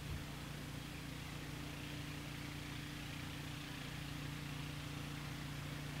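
Steady low hum with an even hiss over it, unchanging throughout; no bird call or drumming stands out.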